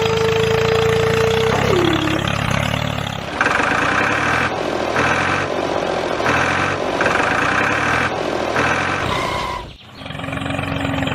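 Tractor engine running steadily, with a held tone that glides down about two seconds in. A series of higher-pitched on-off pulses follows through the middle. The sound drops out briefly near the end.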